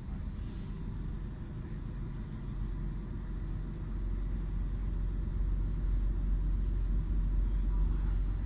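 Low, steady rumble of a train running, heard from inside a passenger coach, growing somewhat louder about halfway through.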